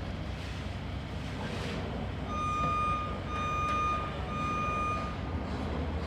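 Reversing alarm on a construction vehicle giving three long beeps at one steady pitch, starting about two seconds in, over a steady low engine rumble.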